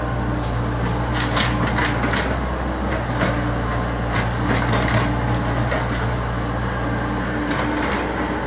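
Komatsu PC70 tracked excavator's diesel engine running steadily, with a higher hum that comes and goes as it works. Scattered sharp knocks and cracks, a cluster about a second in and more around the middle, as the machine works against the tree and ground.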